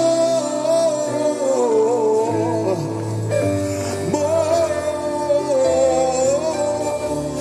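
Gospel worship song: a voice sings long, held notes that waver in pitch over steady instrumental accompaniment.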